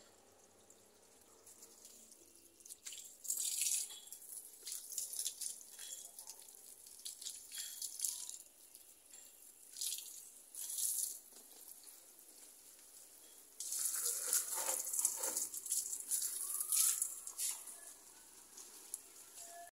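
Water being poured and splashed over potted plants and their soil, in several short splashes and then a longer, louder pour in the second half.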